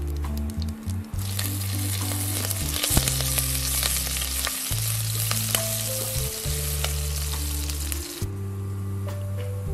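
Tempering of cumin seeds, whole spices and chopped green chillies sizzling in hot oil in a pot, stirred with a silicone spatula, with many small clicks through the sizzle. The sizzle drops away sharply about eight seconds in.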